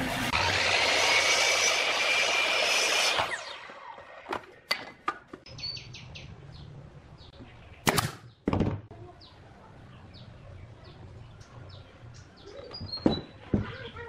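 Electric mitre saw motor spinning up with a rising whine that levels off as the blade cuts through a round wooden dowel, cutting off abruptly about three seconds in. Later come a few sharp bangs, two close together past the middle and more near the end, from a pneumatic nail gun fastening the wooden fins.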